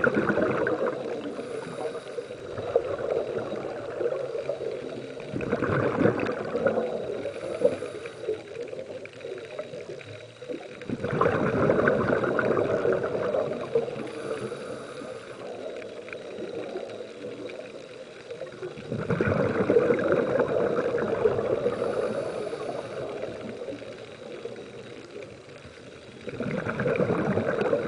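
Scuba diver breathing through a regulator underwater: exhaled bubbles gurgle in about five long bursts, several seconds apart, with quieter inhalations between.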